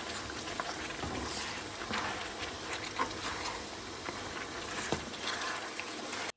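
Bone-in mutton and garlic frying in oil and ghee in a pan: a steady sizzle with scattered small pops and crackles. It cuts off abruptly near the end.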